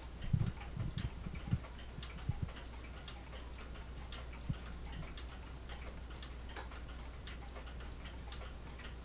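Freshly serviced triple-chime mechanical wall clock movement, which the owner believes is a Hermle, ticking steadily with its face off. A few low thumps in the first couple of seconds.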